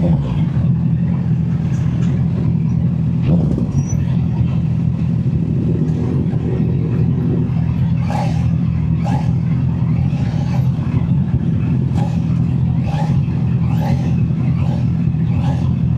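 Honda CB650R's inline-four engine running steadily at an even engine speed, picked up by a mic in the rider's back pocket. A few short, fainter sounds come and go over it in the second half.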